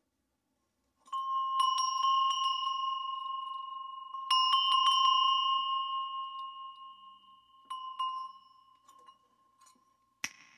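Two small hand-held metal bells, slightly out of tune with each other, are shaken in two bursts about three seconds apart. Each burst rings on and fades slowly through added reverb, and a few lighter strikes follow. A single sharp click comes near the end.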